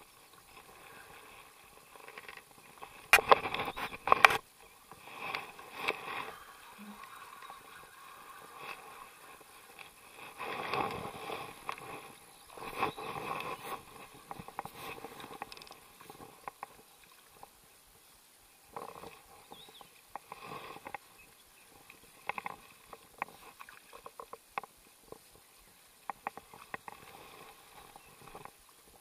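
Fishing-gear handling noises while a small bream is played in on rod and reel: irregular rustles, clicks and knocks, loudest about three to four seconds in.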